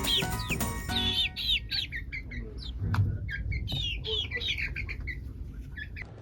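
Chickens chirping over and over in short, high, falling calls. Background music with a beat fades out about a second in, and there is a dull thud about three seconds in.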